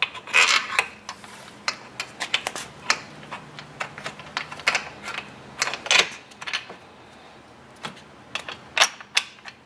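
Irregular clicks and light knocks of plastic rod-clamp parts and a bolt being fitted by hand onto a metal grade rod.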